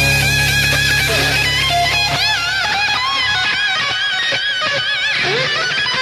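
Electric guitar solo in hard rock music: a held low bass note stops about two seconds in, then fast high runs with wide vibrato.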